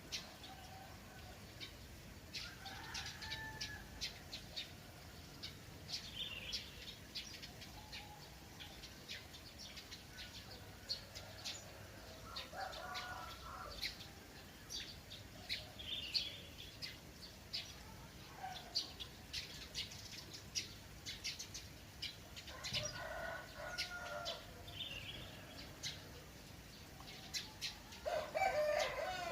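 Small birds chirping quickly and repeatedly, while roosters crow several times, the last crow near the end falling in pitch, over a faint steady trickle of water.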